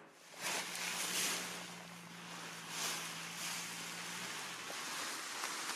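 Wind blowing over the microphone, gusting a few times, with a steady low hum that dies away about four seconds in.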